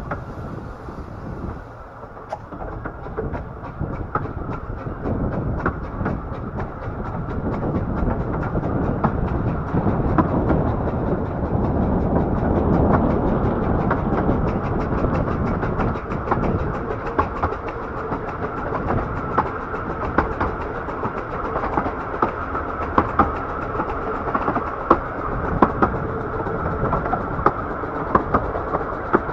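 A 15-inch-gauge miniature railway train running along the line, its wheels clicking rapidly over the rail joints and the carriages rattling, heard from on board. The running noise grows louder about ten seconds in.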